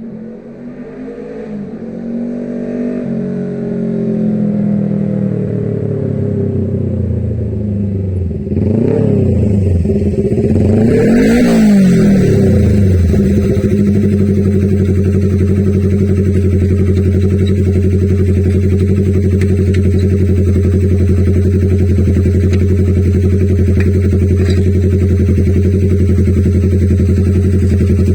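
Yamaha XS250 parallel-twin motorcycle engine running loud with no silencer on the exhaust. The revs climb over the first few seconds, rise and fall twice around ten seconds in, then hold a steady note.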